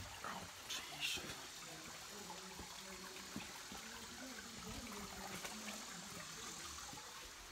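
Shallow creek water trickling steadily over rock, with a couple of short sharp knocks about a second in.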